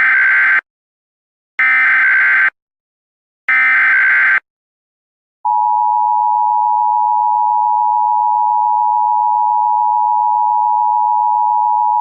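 Emergency Alert System tones: three short bursts of screechy SAME header data, each about a second long and a second apart, then the steady two-tone attention signal starting about five seconds in. Together they mark the start of an emergency alert.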